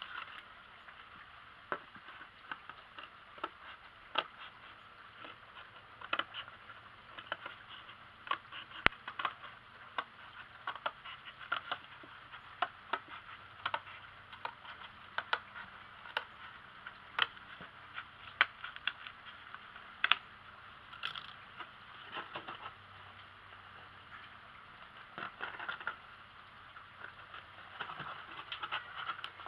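Scissors snipping through cardboard in a run of sharp, irregular cuts, with the cardboard rustling as it is handled.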